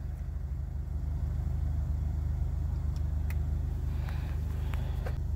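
Car engine idling, a steady low hum heard from inside the cabin, with a few faint clicks about halfway through.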